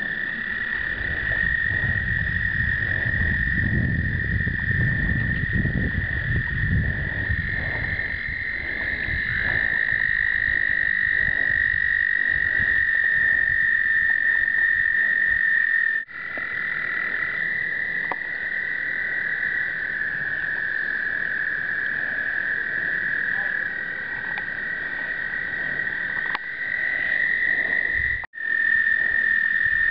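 Chorus of male American toads calling to breed: several long, steady high trills at slightly different pitches overlap and carry on throughout. A low rumble sits under them in the first several seconds, and the sound drops out briefly twice.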